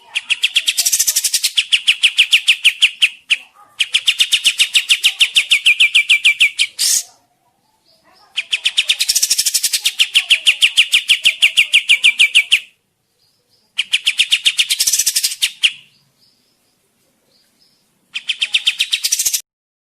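Kapas tembak songbird giving loud, rapid chattering trills, about ten sharp notes a second, in five bouts of two to four seconds with short pauses between.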